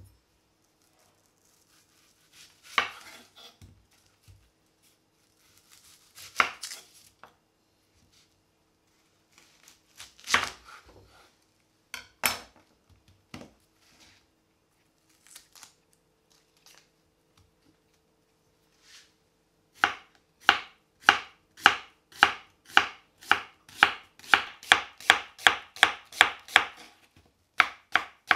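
Kitchen knife cutting a yellow onion on a wooden chopping board: a few separate cuts in the first half, then a steady run of thin slicing strokes, about two a second, picking up slightly near the end.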